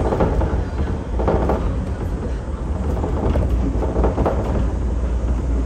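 Shonan Monorail 5000 series suspended monorail running on its rubber tyres inside the overhead beam: a steady deep rumble with rattling swells of running noise coming and going.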